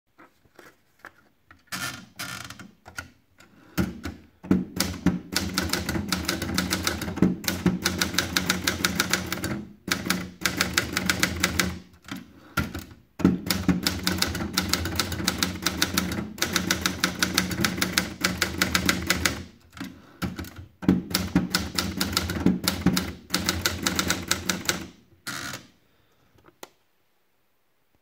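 Scheidegger manual portable typewriter: a few clicks as a sheet of paper is fed in around the platen, then fast typing, rapid key strikes in long runs broken by short pauses, which stops shortly before the end.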